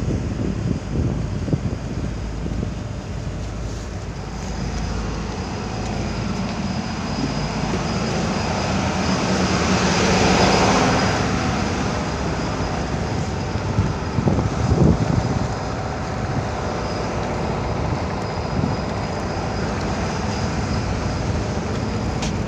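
Boat engines running with water and wind noise: a steady low drone that swells to a louder, hissier peak about halfway through, then settles back.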